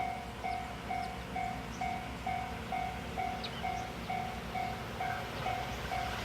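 Japanese railway level-crossing warning bell ringing in a steady, even clang about twice a second, the signal that a train is approaching, over a low background rumble.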